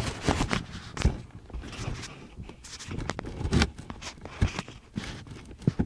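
Irregular knocks, thumps and scrapes, with rustling handling noise on the microphone.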